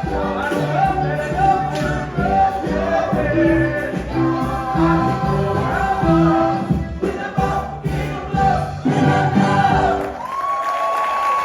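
Cast singing in chorus over a live pop-rock band in the final bars of a musical-theatre number. About ten seconds in, the band cuts off, a held final sung note remains, and audience applause starts.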